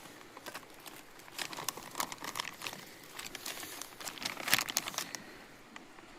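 Small wood fire crackling under grilling meat, with irregular sharp pops, a burst of louder ones about four and a half seconds in.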